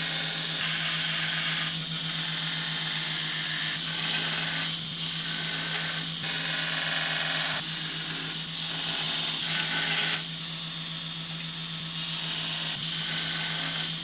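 Belt grinder grinding the end of a cold-rolled steel block: a steady motor hum under a loud grinding hiss that grows and eases several times as the block is worked against the belt.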